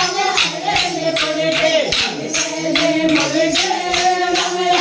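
Wooden dance sticks clacked together in a steady rhythm, about three strikes a second, over a group singing.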